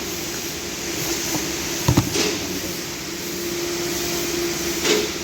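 Steady mechanical hum with a faint steady tone, broken by sharp knocks about two seconds in and again near the end.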